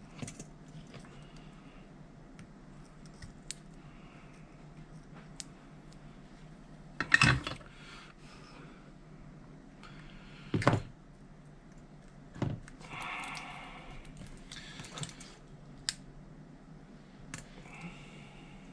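Scattered clicks and knocks of tools and the battery pack being handled on a workbench, two of them much louder, with a short rasping scrape a little later, over a low steady hum.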